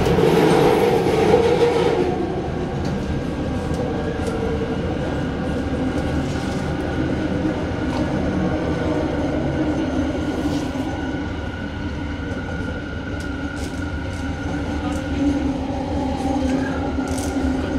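Inside a Bombardier Innovia Metro 300 light-rail train running at speed on elevated track: steady rumble of wheels on rails with a continuous electric whine. The rushing noise is louder for the first couple of seconds.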